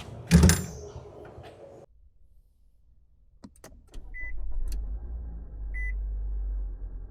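A thump, a few clicks, then a car's engine starts and runs with a steady low rumble while a short electronic chime beeps about every second and a half.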